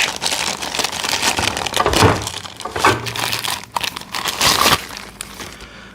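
Plastic crinkling and rustling with a couple of sharp knocks as heavy 1-inch-drive impact sockets are handled and pulled out of their case.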